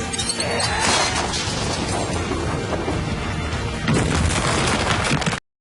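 Anime battle soundtrack: dramatic music layered with heavy booming impact effects, swelling louder about four seconds in and cutting off abruptly near the end.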